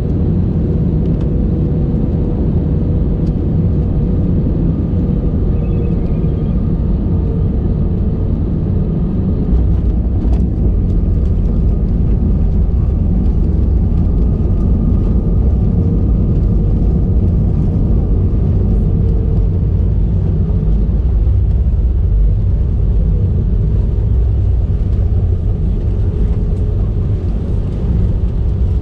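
Cabin noise of an Airbus A320 landing, heard by the wing: a steady engine tone and airflow rumble on the last seconds of approach, then touchdown about ten seconds in, after which a heavier low rumble of the landing rollout continues with the ground spoilers raised.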